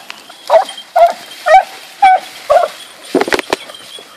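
Hunting dogs barking in short, high yelps, about two a second, baying a wild boar they have brought to a stand. A rougher, noisier burst comes a little past three seconds in.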